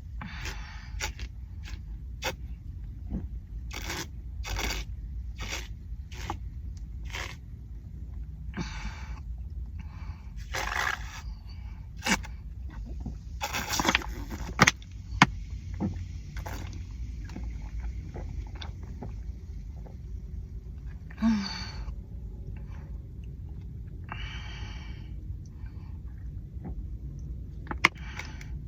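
A person gulping down a Sprite in a long run of swallows, with breaths and gasps between them, over a steady low background rumble. The swallows come quickly in the first few seconds and more sparsely later.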